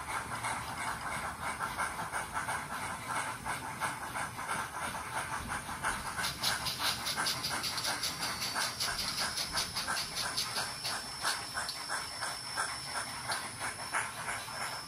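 Sound decoder of an Nn3 Rio Grande steam locomotive model playing steady, rhythmic steam exhaust chuffs through its tiny onboard speaker. About six seconds in, a thin, steady high tone joins the chuffing.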